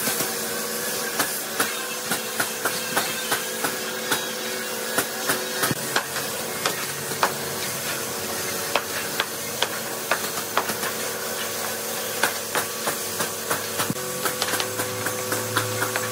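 Hammer driving nails into wooden planks: sharp, irregular strikes about two a second, over a steady machine hum.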